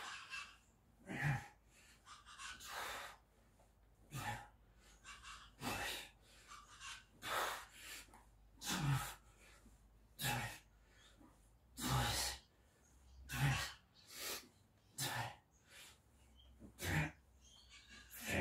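A man breathing hard during leg-raise ab exercises: a sharp, forceful exhale about every one and a half seconds, some with a short voiced grunt, in time with the repetitions.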